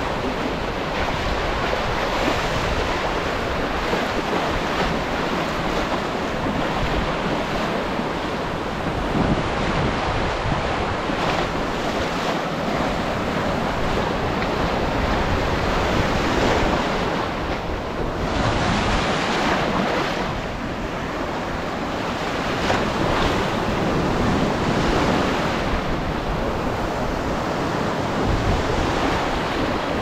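Small ocean waves breaking and washing through shallow surf close by, swelling and easing every few seconds, with wind buffeting the microphone.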